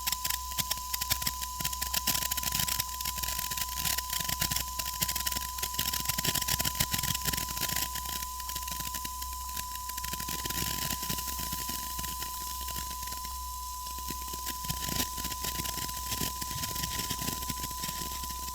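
Handheld sparkler fireworks crackling: a dense stream of small spark pops, busiest in the first half and thinning out later. A steady beep tone runs over it throughout as a sample watermark.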